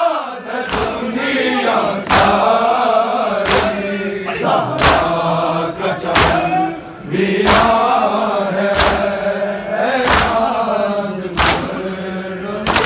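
A crowd of men chanting a Muharram nauha together, with a sharp collective slap of hands striking chests (matam) in time with the chant, roughly every second and a third.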